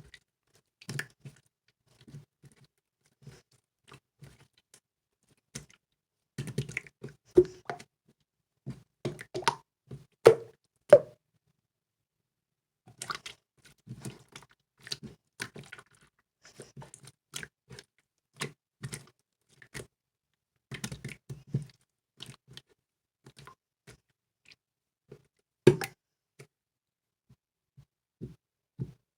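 Hands squishing and pressing a jiggly slime, making irregular runs of small wet clicks and crackly squelches, with silent pauses between the handfuls.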